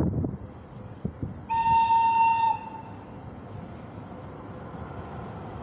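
VL80k electric locomotive sounding one high-pitched horn blast of about a second, starting a second and a half in, over the low rumble of its approaching freight train.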